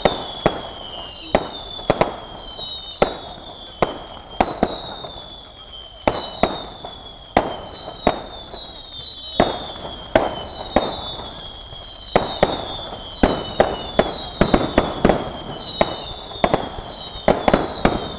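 Fireworks display: a continuous run of overlapping shrill whistles, each falling in pitch over about a second, with sharp bangs going off irregularly among them, coming thicker near the end.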